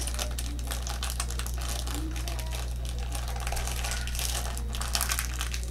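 Rapid irregular clicking and crinkling of a LEGO Ninjago spinner set being unboxed: packaging being opened and small plastic pieces rattling.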